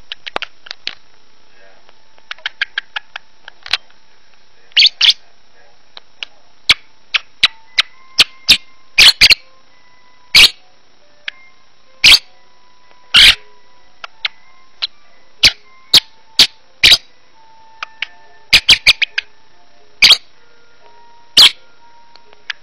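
Pet lovebird chirping and chattering to itself as it settles to sleep. Short, sharp chirps come at uneven intervals, some much louder than others, with soft warbling notes in between.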